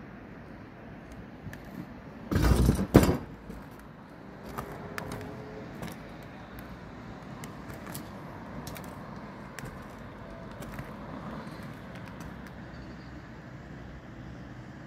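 Steady background of distant traffic, with one loud burst of noise lasting under a second about two and a half seconds in and a few faint clicks after it.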